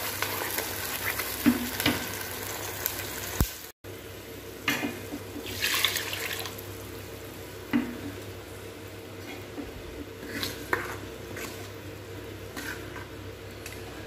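Ground masala paste sizzling in hot oil in a frying pan, with a few sharp clicks. After about four seconds the sizzle drops to a quieter hiss, with a steel ladle now and then scraping and clinking against the pan as the gravy is stirred.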